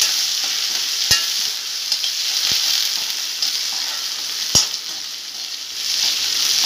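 Sliced onions sizzling as they fry in hot oil in a metal kadai, stirred with a metal slotted spatula that knocks against the pan three times, loudest about four and a half seconds in.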